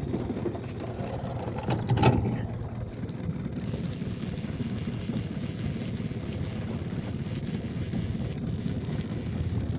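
Small Mercury outboard motor running steadily at trolling speed, a low drone mixed with wind on the microphone. A couple of sharp knocks come about two seconds in.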